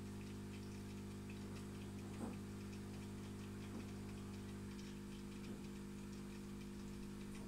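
Faint steady hum of aquarium equipment with light ticking and a few small water plops, about two, four and five and a half seconds in.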